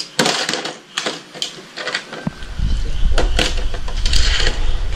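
Plastic Hot Wheels toy track and die-cast cars being handled and launched: a run of sharp plastic clicks and knocks, joined about two seconds in by a low rumble under further clicks.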